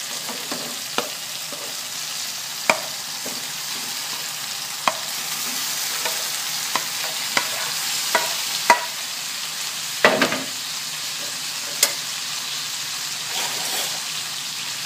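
Boiled chicken liver slid from a frying pan into a hot metal wok of sautéed tomatoes and chili, sizzling steadily. A spatula scrapes and knocks against the pans in scattered sharp clicks, with a heavier clatter about ten seconds in.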